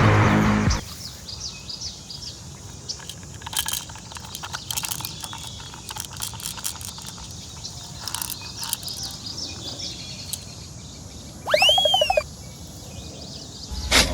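Music cuts off about a second in, leaving faint outdoor ambience with scattered short bird chirps. Near the end comes a brief, louder rising-then-falling call.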